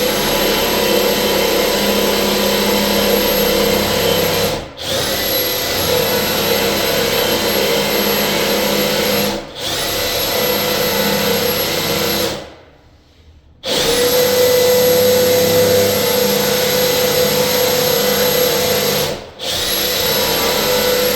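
Electric drill with a 5/16-inch bit boring holes through a wooden door, running steadily with short stops about every five seconds and a longer pause just past halfway. The drill is backed out between runs to clear wood chips so the bit doesn't jam.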